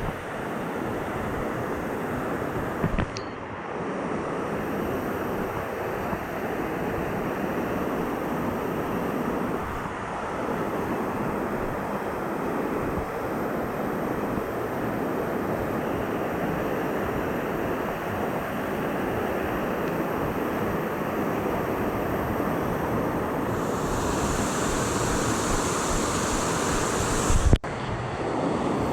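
Steady rush of water from a waterfall and rapids. A sharp knock comes about three seconds in and another near the end.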